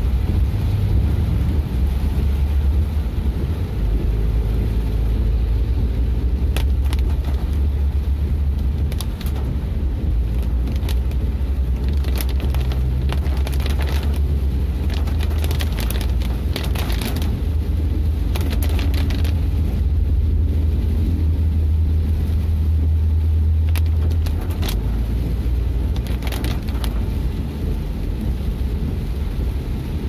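Steady low rumble of a car's engine and tyres heard from inside the cabin while driving in the rain, with scattered sharp taps of raindrops hitting the windshield and roof. The rumble eases a little about three quarters of the way through.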